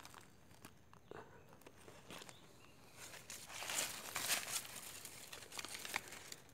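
Footsteps on stony, leaf-strewn ground with low shrubs rustling. It is faint at first, then a run of louder, irregular scuffs and scrapes from about three seconds in.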